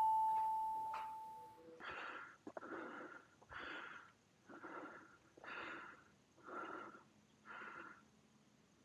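A bell chime from the subscribe-button overlay rings out and fades over the first second and a half. Then comes a person's breathing: a short breathy puff about once a second, seven in a row.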